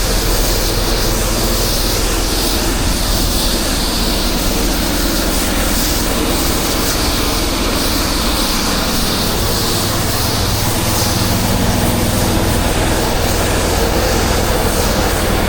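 A 10 GPM pressure washer's engine runs steadily under load while its wand sprays water in a steady hiss, rinsing down walls after the chemical has been switched off.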